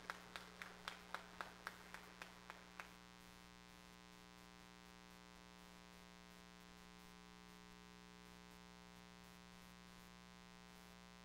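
A congregation's applause dying away to a few last scattered claps over the first three seconds, then only a faint steady electrical hum with a buzz.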